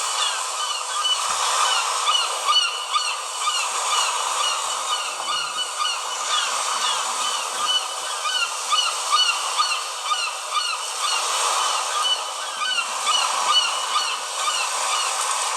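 A Samsung Galaxy Fame ringtone of bird calls playing through the phone's small speaker: many short chirps repeating several times a second over a steady hiss, with no bass.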